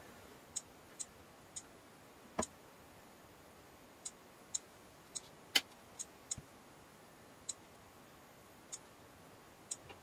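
About a dozen short, irregular clicks from fingertip taps on a Nexus 4's touchscreen while paging through setup screens, the loudest one a little past the middle.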